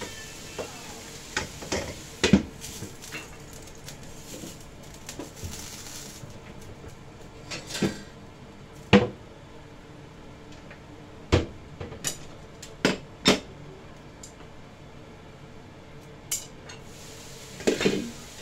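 Kitchen clatter: about a dozen scattered clinks and knocks of cookware and utensils over a faint steady hiss. It begins as a glass lid is set on the wok, and a cluster near the end comes as the lid is lifted off.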